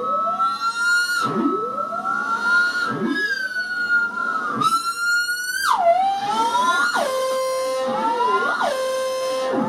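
Homemade analog synthesizer built from 555-timer oscillators, its keyboard output used as a pseudo control voltage, making siren-like swooping pitch glides that repeat about every second and a half over a held high tone. About six seconds in, the pitch drops sharply and the sound changes to tones jumping back and forth between a low and a high pitch.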